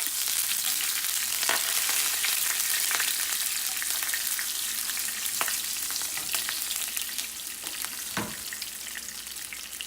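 Hot oil sizzling and crackling as curry leaves and green chillies go into a tempering of popping mustard seeds and urad dal. The sizzle is loudest at first and slowly dies down, with scattered pops and a sharper click about eight seconds in.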